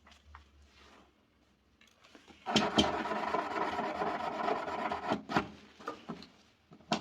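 Puncture repair tool, the kind used in a tubeless tyre plug kit, worked in and out of the puncture in a rubber tyre. It makes a continuous rasping rub for about three seconds, then a few short knocks.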